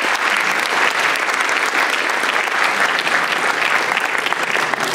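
Conference audience applauding, a dense steady patter of many hands clapping at the end of a talk.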